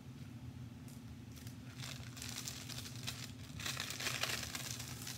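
Crinkling plastic: the clear protective film on a diamond-painting canvas being handled and peeled back from the sticky surface. It starts about two seconds in and is loudest near the end.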